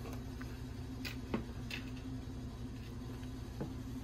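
A few light clicks and taps of a zippered camera case being handled and its lid opened, over a steady low hum.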